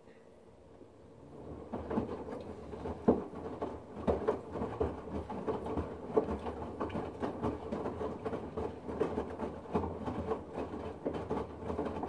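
LG front-loading washing machine drum starting to tumble about a second and a half in, water sloshing and splashing irregularly as the load turns over in a deep water level, stopping just after the end.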